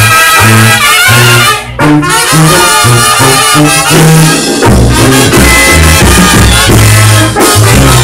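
Live Mexican banda playing an instrumental passage: trumpets and trombones carry the melody over a tuba playing a bouncing bass line of short notes. The music is loud, with a brief dip a little under two seconds in.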